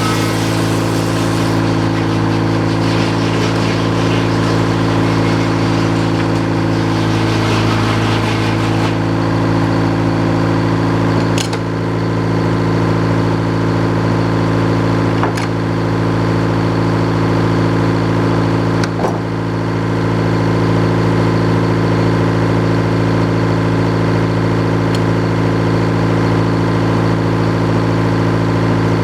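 A sawmill's engine running steadily. A hiss over it fades out about nine seconds in, and a few sharp clicks come later.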